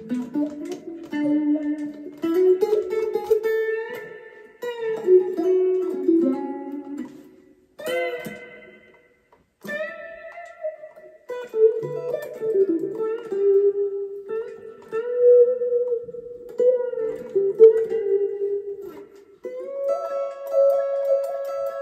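Electric guitar played through a Donner Vowel volume/wah pedal into a Roland Micro Cube amp: a melodic single-note line, with a short break about nine seconds in.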